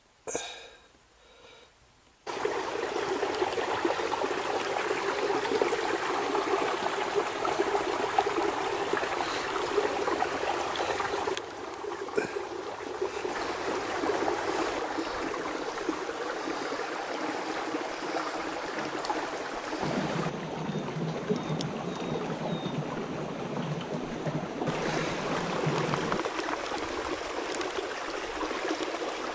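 Tamarack Creek's water flowing in a steady rush, which comes in about two seconds in, after a short ringing tone that dies away.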